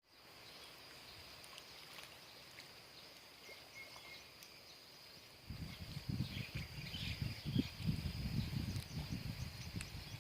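Outdoor ambience: a steady, high-pitched insect drone with a few faint chirps. About halfway through, a low, uneven rumble comes in and stays, louder than the drone.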